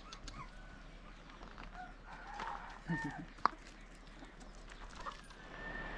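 Chickens clucking in short, scattered calls, busiest around the middle, with one sharp click about three and a half seconds in.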